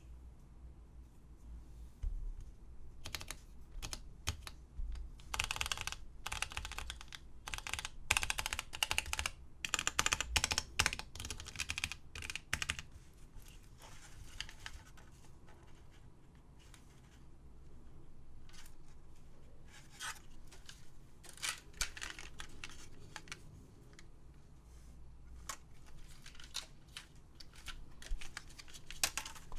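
Typing on a new-old-stock 1987 Toshiba J-3100 GT keyboard module with Alps SKFM key switches: fast runs of keystroke clicks with short pauses, a lull about halfway through, then more keystrokes.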